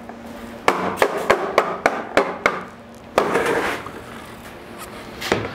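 Rubber mallet striking a piece of white PVC (vinyl) fence post: about seven quick, sharp knocks in a row, then the hollow vinyl post rubbing and bumping as it is lifted, with one more knock near the end.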